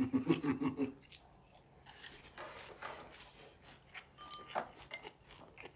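Eating sounds: chewing and mouth smacks, with scattered light clicks of chopsticks against bowls and dishes and one short ring of a dish about four seconds in. A voice speaks briefly at the start.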